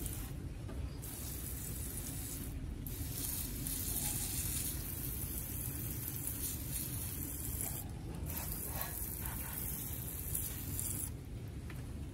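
Water hissing from a garden hose spray nozzle onto potted succulents. The spray pauses briefly three times and stops about a second before the end.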